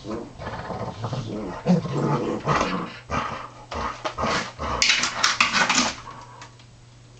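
A Jack Russell terrier and a springer spaniel play-fighting: a run of growls and snarls, loudest about five seconds in, dying down about six seconds in.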